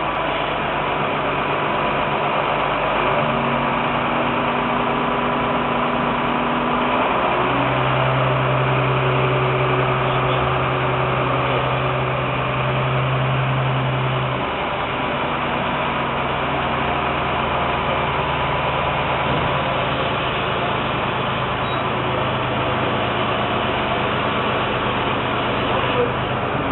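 Diesel engine of a CompAir C200 TS-24 TurboScrew portable screw compressor running steadily, its hum shifting in pitch a few times, most strongly for several seconds in the first half.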